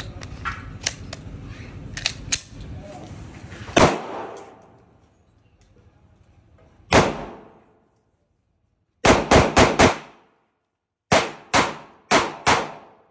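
Semi-automatic pistol being loaded, with a few metallic clicks as the magazine is seated and the gun readied, then fired ten times. Two single shots come a few seconds apart, then a quick string of four and another four a little more slowly, each shot echoing off the range walls.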